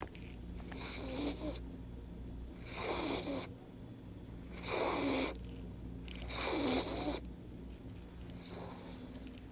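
Snoring of a sleeper: five snores, roughly one every two seconds, the last one fainter.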